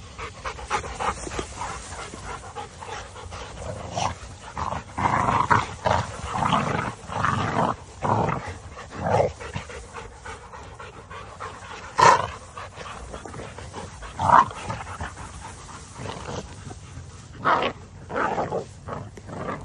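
Dogs panting and scuffling as they play-wrestle in grass, in irregular bursts, with two short sharp sounds about two seconds apart midway.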